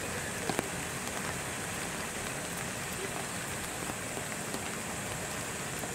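Steady outdoor background hiss with scattered faint ticks.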